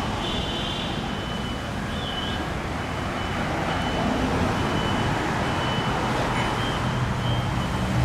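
Street traffic: a steady wash of passing vehicles with low engine rumble, growing slightly louder about halfway through, with a thin steady high-pitched tone.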